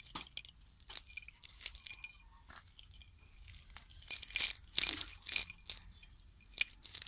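Strung old clay buttons clicking against one another as they are handled, with a plastic bag crinkling; scattered soft clicks, and a few louder rustles about four to five seconds in.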